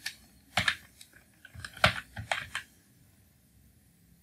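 Computer keyboard keys clacking as a short word is typed: a quick, uneven run of keystrokes over about two and a half seconds, then stopping.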